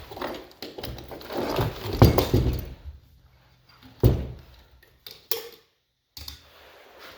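Irregular clattering, knocking and thumps of heavy objects being handled and shifted. There is a run of clatter in the first couple of seconds and one heavier thump about four seconds in.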